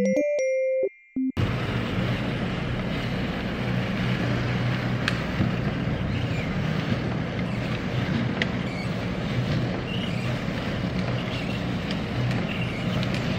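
A few synth notes cut off about a second and a half in. After that, a steady low rumble and hiss of background noise fills the rest, with a few light scattered clicks from plastic and paper being handled.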